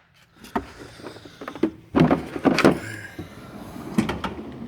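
Knocks and clunks of a tool case being put away in a steel tool box, with a drawer sliding on its runners. A few separate knocks come about half a second in, a cluster around two seconds, and one more near four seconds.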